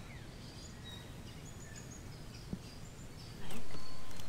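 Outdoor ambience: a steady low rumble with scattered short, high bird chirps. About three and a half seconds in, the background noise suddenly gets louder.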